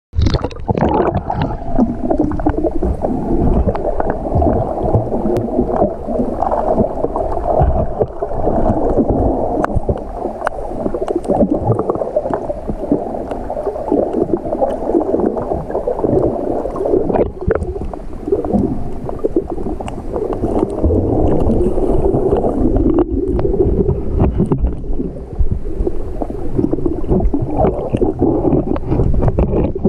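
Water moving and gurgling, heard underwater: a continuous muffled churning with scattered sharp clicks.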